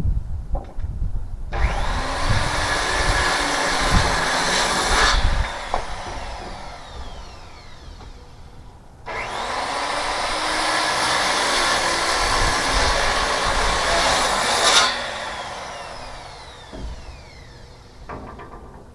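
Electric power saw cutting through wood twice: a cut of about four seconds, then a longer cut of about six seconds. After each cut the motor winds down with a falling whine.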